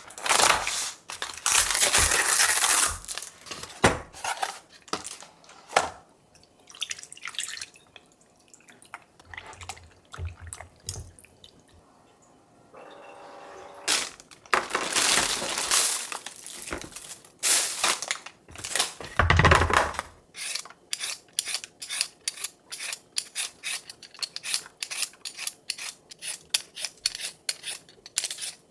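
Plastic bag rustling and crinkling as vegetables are taken out of it. About two-thirds of the way in, this gives way to quick, even scrapes of a Y-shaped peeler taking the skin off a vegetable, about three strokes a second.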